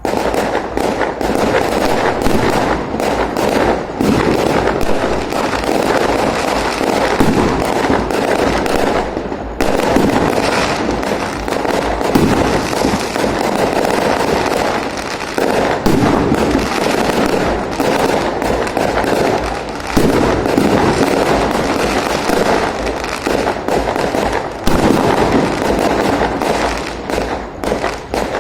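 Fireworks going off in a dense, continuous barrage of rapid bangs and crackles, with brief lulls before the firing picks up again.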